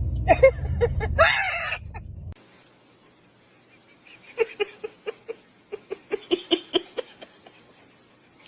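Short, pitched animal calls: a few over a low rumble until a cut about two seconds in, then a quick run of brief calls, several a second, from about four seconds in.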